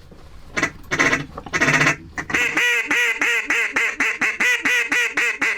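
A duck call blown by a hunter: a few long quacks, then from about halfway a fast, even run of short quacks at about five a second, calling to incoming ducks.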